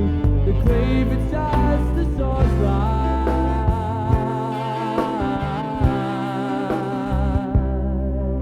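A song with a singing voice and a backing band, played back from a slightly water-damaged cassette tape. A long held note wavers in pitch through the middle, and the treble drops away near the end.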